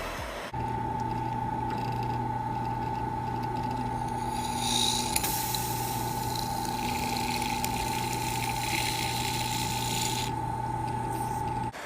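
Electric drill running at a steady speed with a high, constant whine, its heated bit scraping and hissing against the material from about four seconds in until near the end; the sound cuts off suddenly.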